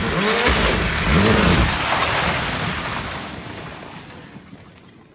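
Rally car passing at speed, its engine revving up and down through several gear changes over a hiss of tyres. It is loudest a little over a second in, then fades away.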